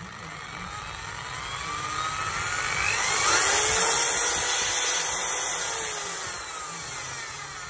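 Bosch GSB 10RE corded impact drill running with no load in plain drill mode. Its motor whine rises as the variable-speed trigger is squeezed, peaks about three seconds in, then falls slowly as the trigger is eased off.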